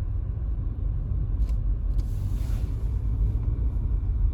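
Steady low rumble of a car heard from inside the cabin while driving on snowy roads, with a faint click about a second and a half in and a brief hiss just after two seconds.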